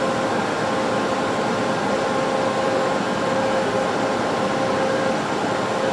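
Alstom AS-02 metro train standing at the platform, its air conditioning and auxiliary equipment running: a steady hiss with a steady hum in it.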